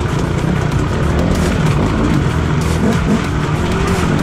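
Off-road motorcycle engine running and revving up and down, under a steady hiss.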